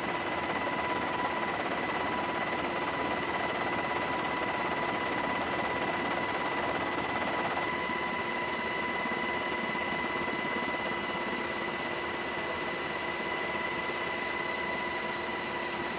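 Steady aircraft engine drone with several constant whining tones; the sound shifts slightly about eight seconds in.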